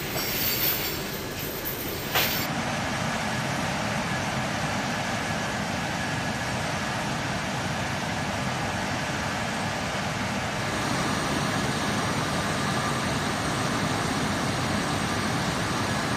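Steady, loud engine and machinery noise during the offload of a Bradley fighting vehicle from a C-17 cargo hold, with a few metallic clanks of tie-down chains being handled in the first couple of seconds. A little past ten seconds in, the noise grows slightly louder.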